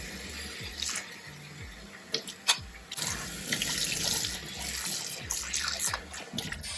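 Water running from a kitchen tap into a sink, with a few sharp clinks of cutlery and dishes.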